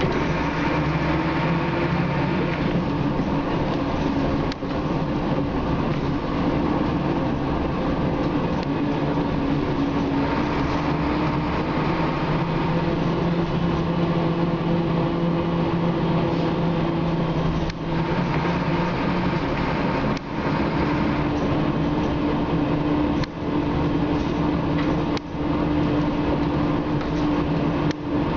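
Scania K93CRB bus's 9-litre six-cylinder diesel engine and drivetrain heard from inside the passenger saloon while the bus is under way: a steady drone with a couple of held tones along with body rattle, dipping briefly a few times, mostly in the second half.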